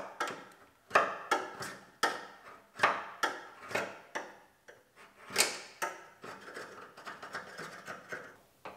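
Hand scraper scraping firm seam sealer, cold and unheated, off a car's steel body seam in short, sharp scratchy strokes, about one or two a second. Near the end comes a run of lighter, quicker scratches.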